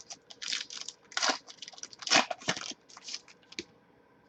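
Crinkling and tearing of a foil trading-card pack wrapper being ripped open, a run of irregular rustles with a few louder crackles that stop about three and a half seconds in.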